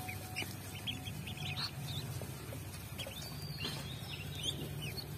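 A group of ducklings peeping: many short, high chirps in quick clusters, several birds at once.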